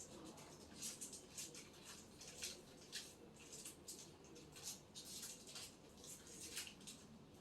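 Faint, irregular rustling with light clicks and ticks, several a second.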